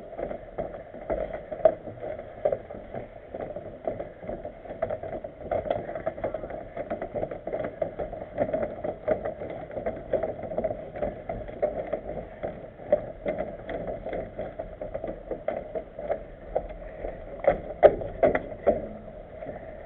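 Scattered clicks, clanks and rattles of a mountain bike and feet on a steel-grated footbridge ramp, over a steady drone. A cluster of louder knocks comes near the end as the bike rolls onto the grated deck.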